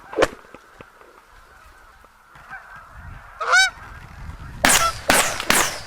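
Geese honk, then three shotgun shots go off in quick succession near the end.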